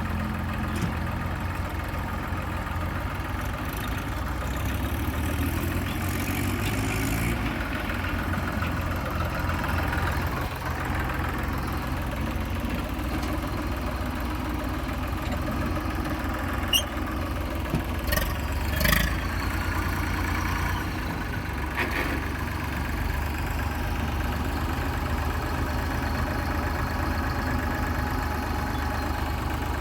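Diesel engine of heavy machinery running steadily at idle, with a few sharp metallic clanks a little past the middle.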